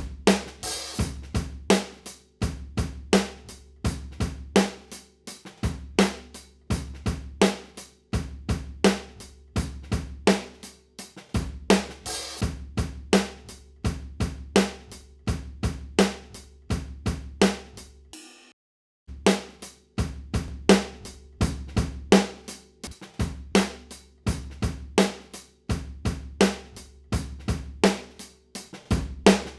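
A recorded drum kit playing a steady beat of kick, snare, hi-hat and cymbals over low sustained notes, played back through a vintage-style EQ plugin. The playback stops for about half a second some 18 seconds in and starts again.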